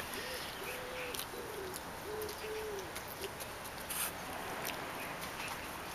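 Five-week-old Bichon Frisé puppy whimpering: about six short, high whines in quick succession over the first three seconds, then it stops.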